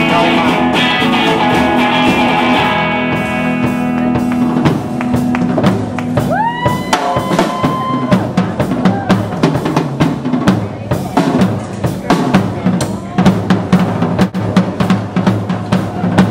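A band's sustained closing chord rings out over the first four seconds or so, then a rock drum kit solo takes over: fast, dense snare, rimshot and bass drum hits. A brief rising, then held tone sounds over the drums about six seconds in.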